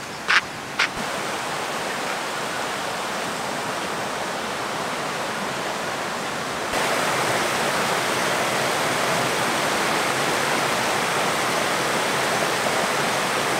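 River water rushing over rock cascades, a steady rush that gets louder about seven seconds in. Two short sharp clicks in the first second.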